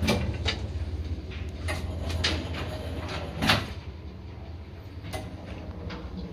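Old Soviet passenger lift in operation: a steady low hum with a series of sharp clicks and knocks from the mechanism, the loudest about three and a half seconds in, after which the hum drops somewhat lower.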